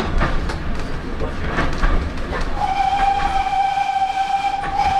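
GWR pannier tank 6412's steam whistle, worked from the autocoach's driving cab, giving one long steady blast that starts about two and a half seconds in and is still sounding at the end. Under it the coach runs on with a steady rumble and knocks over the rail joints.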